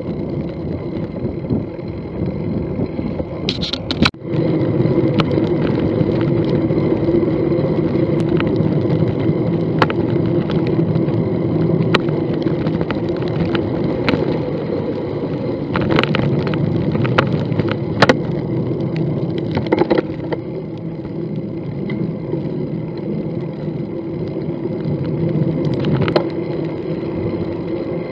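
Riding noise of a bicycle at cycling speed: a steady rumble of tyres on paved path with scattered sharp clicks and rattles over bumps. The sound drops out briefly about four seconds in.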